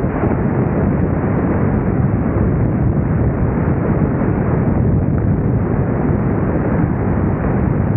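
Steady, loud rush of airflow buffeting a camera microphone mounted out on the wing strut of a Carbon Cub FX-3 in low flight, with the airplane's engine running under it as a constant rumble.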